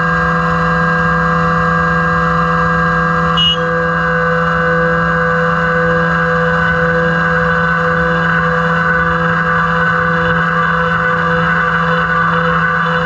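CNC milling machine cutting a 6061 aluminium block with an end mill: a steady, high-pitched spindle and cutting tone with chips flying. One brief click comes about three and a half seconds in.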